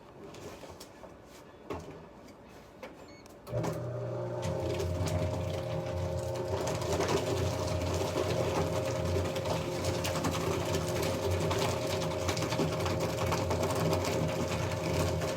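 Electric paper shredder switching on about three and a half seconds in, its motor running with a steady hum while it cuts through paper with a dense crackle. A few faint clicks come before it starts.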